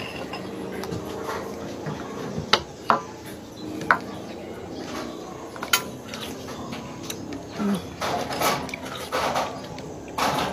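Metal spoon clinking and scraping against a ceramic bowl while spooning porridge, with several sharp clinks in the first half, then eating sounds near the end.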